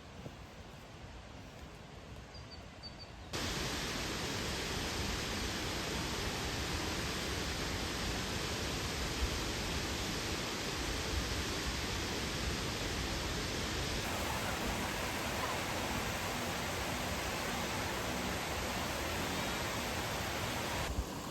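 Steady, even rush of a waterfall that cuts in suddenly about three seconds in, louder than the quieter forest ambience before it.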